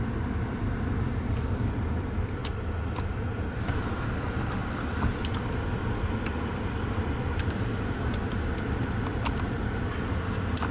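Steady hum of a 2015 Chevy Malibu with its climate-control blower fan running on a new control panel. A number of brief, sharp clicks are scattered through it.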